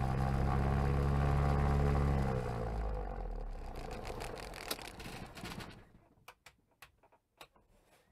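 Comco Ikarus ultralight's propeller engine idling, then shut down about two seconds in, its pitch dropping as it runs down and stops. A few short clicks follow near the end.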